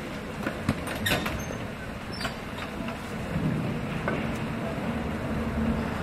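A motor vehicle's engine running in the background, its low hum growing stronger about halfway through, with a few sharp clicks.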